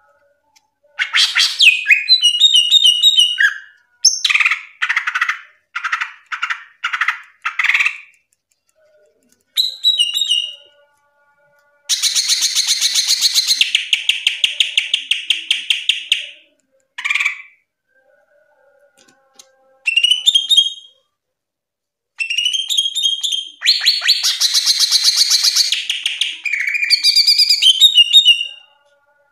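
Green leafbird (cucak ijo) singing a loud, varied song in separate phrases: whistled notes that sweep up and down, short chattering runs, and two long rapid trills of a few seconds each, with brief pauses between phrases.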